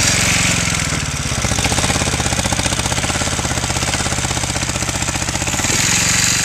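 Small old tractor's engine running, heard close beside its upright exhaust stack, with a fast, even pulse of firing strokes. Its note shifts and grows a little louder near the end.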